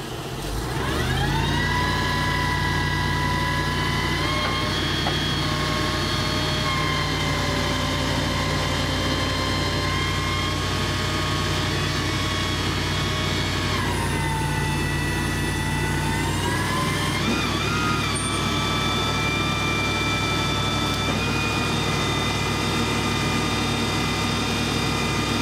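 Truck engine running at raised speed to drive the hydraulic pump of a Simon-Telelect digger derrick, a steady low drone under a high whine as the boom is raised and extended. The whine rises as the engine speeds up in the first second or so, then dips and climbs back about halfway through.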